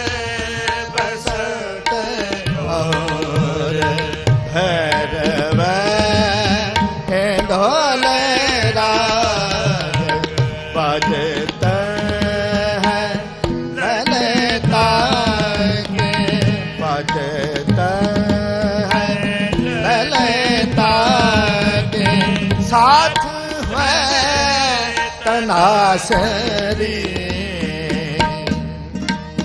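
Sikh kirtan in raag Lalit: a male voice sings long, ornamented gliding phrases over tabla and melodic instrumental accompaniment.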